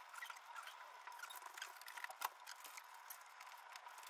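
Near silence: faint room tone with a thin steady hum and scattered tiny clicks and crackles, one slightly louder click about two seconds in.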